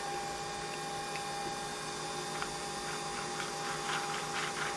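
Nespresso capsule coffee machine running with a steady hum as it brews into a cup of ice; the hum stops near the end, with a few faint ticks in the last couple of seconds.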